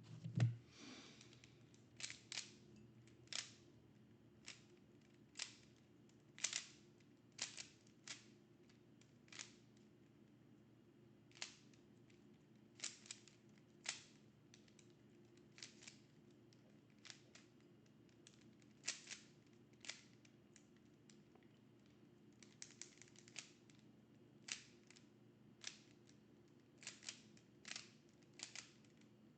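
Rubik's Cube layers being turned by hand: faint, sharp clicks at irregular intervals, about one or two a second, with a quick flurry of turns a little past the middle.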